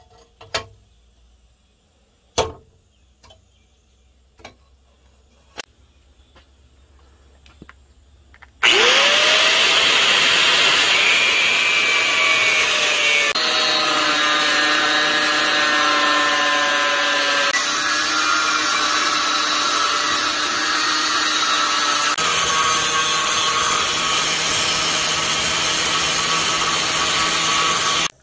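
A few sharp taps, then about nine seconds in a Bosch GWS 750-100 angle grinder starts with a rising whine and cuts through the steel of an old circular saw blade. Its loud, steady grinding whine carries on, with a few sudden shifts in tone.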